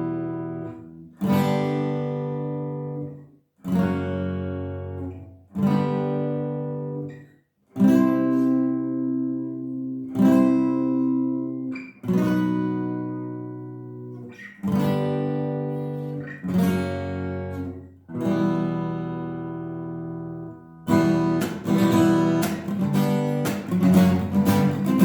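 Acoustic guitar strummed with a pick, playing the song's intro in barre chords: single chords struck one at a time and left to ring, about one every two seconds. Near the end it switches to quick, rhythmic strumming.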